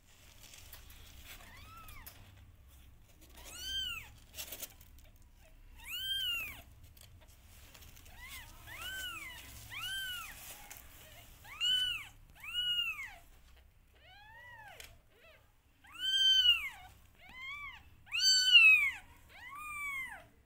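Newborn kittens mewing: a dozen or so short, high-pitched cries, each rising then falling in pitch, coming every second or two and louder toward the end.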